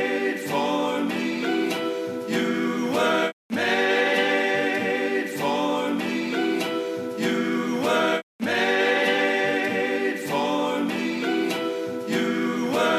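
Background music: a chill instrumental track with a gliding melody over sustained chords, cutting out completely twice for a split second.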